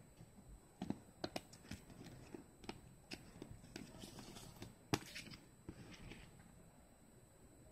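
Handling noise from a plastic CD jewel case and its paper booklet: a scatter of faint clicks and taps, with one sharper click about five seconds in.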